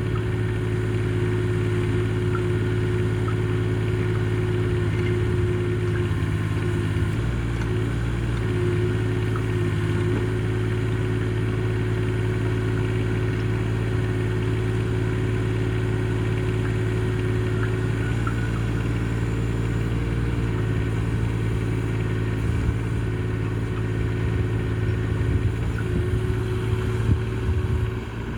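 Mini excavator's engine running steadily at a constant speed. Its tone shifts slightly about seven seconds in and again around eighteen seconds.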